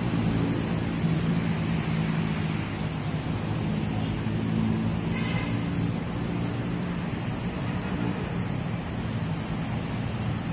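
A motor vehicle engine running steadily: a low hum whose pitch shifts slightly now and then.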